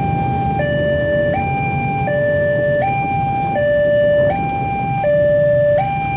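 Indonesian railway level-crossing warning alarm sounding its two-tone electronic signal, stepping between a lower and a higher tone about every three-quarters of a second, over the low rumble of road traffic waiting at the crossing.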